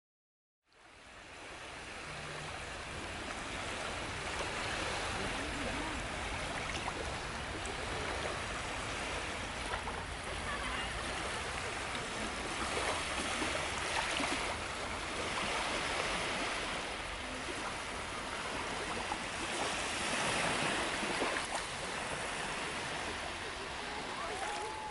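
Ocean waves washing ashore, fading in after a moment of silence and swelling and easing every few seconds.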